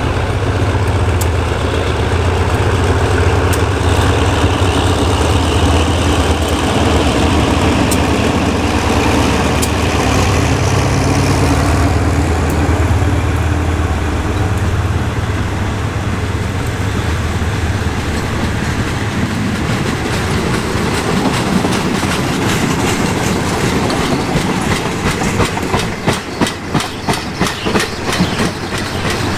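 Diesel-electric GEA-class locomotive and its passenger coaches arriving at a station. The engine drone is loud at first and fades after about twelve seconds as the coaches roll past, and near the end the wheels click over the rail joints in a quick, even rhythm.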